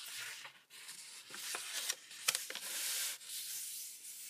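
Square sheet of paper rustling and sliding as it is folded along a diagonal, bottom edge to left edge, then rubbed down to form the crease. It comes in several hissy stretches broken by a few sharp crackles.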